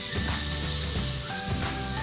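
Background music with steady held bass notes, over a faint sizzle from the pan on the stove.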